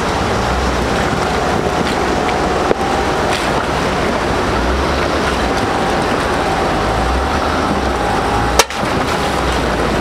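Off-road truck's engine running under a loud, steady rushing noise, with one sharp click or knock about eight and a half seconds in.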